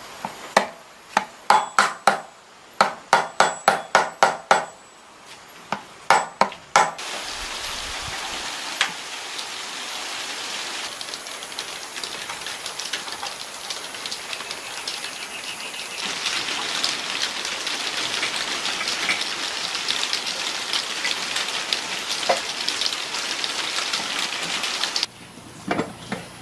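About a dozen ringing hammer blows on metal in the first seven seconds, then a steady, harsh hiss with crackle that cuts off suddenly near the end.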